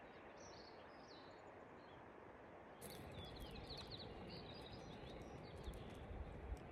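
Faint outdoor ambience with small birds chirping high and thin. About three seconds in it gets louder, with a low rumble and scattered clicks under more chirping.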